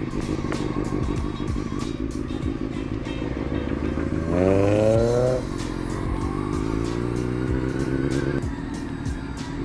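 Motorcycle engine running, revving up with a rising pitch about four seconds in and easing off a second or so later, with background music over it.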